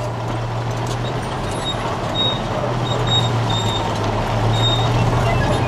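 A steady low engine drone, as of heavy machinery running, under a constant rushing noise that grows slightly louder. A few short high chirps sound over it.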